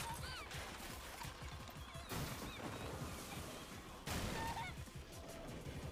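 Anime episode audio playing at low level: a few short, high, wavering squeals, and two sudden impacts about two seconds apart.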